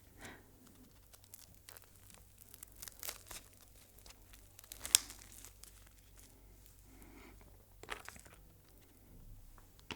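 Close-miked eating and food handling: scattered crackling, tearing and crunching, with a sharp click about five seconds in and another near eight seconds.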